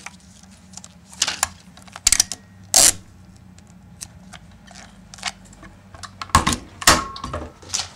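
Hand-operated film tape splicer clicking and clunking as cinema film is cut and joined: sharp clicks at irregular intervals, the loudest pair near the end, over a steady low hum.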